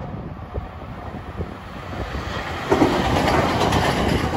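A 521-series electric multiple unit approaching and running past close by. The rumble builds, then jumps sharply in loudness about two-thirds of the way through as the train reaches the crossing.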